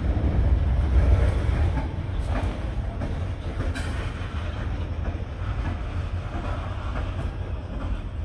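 Freight train rolling across the railway bridge overhead: a steady low rumble of wheels and cars with a few sharp clanks, easing slightly after the first second or so.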